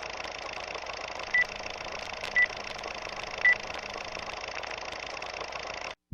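Three short, high electronic beeps, about a second apart, over a steady background hiss.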